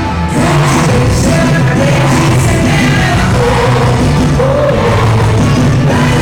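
Loud music with a singing voice, with a brief drop just at the start.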